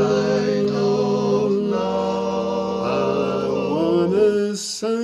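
Male a cappella quartet singing sustained, wordless close-harmony chords that shift a few times. Near the end the lower voices drop out, a brief hiss is heard, and fewer voices carry on.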